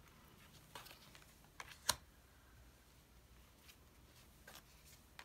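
Tarot cards being handled as they are turned over one after another: a few faint short clicks and slides, the sharpest about two seconds in.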